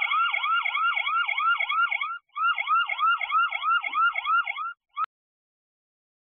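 Electronic alarm siren giving a rapid repeating whoop, each note sweeping down in pitch, about four a second. It sounds in two runs with a brief break about two seconds in, cuts off abruptly near the end, and is followed by a single short beep.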